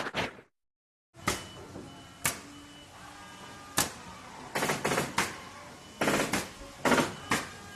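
Horror sound effect: a loud noisy sound cuts off about half a second in. After a short silence comes a series of sharp knocks and bangs, several in rattling clusters, over a low background hum.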